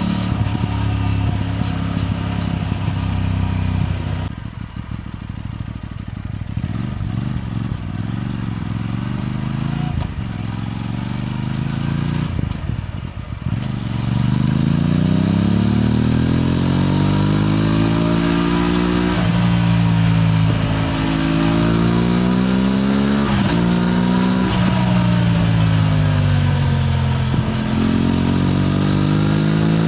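Aprilia RS 457's parallel-twin engine under way. It runs steadily at first, then drops to low revs off the throttle for about ten seconds with a few sharp cracks. Then it accelerates hard, the pitch rising and falling back through three upshifts.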